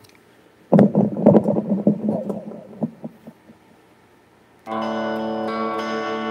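Guitar strummed hard in a quick flurry about a second in, ringing away over the next two seconds; near the end a steady sustained chord comes in and holds, the opening of a song.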